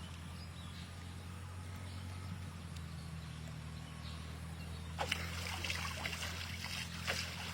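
Water splashing and dripping starts about five seconds in, over a steady low hum.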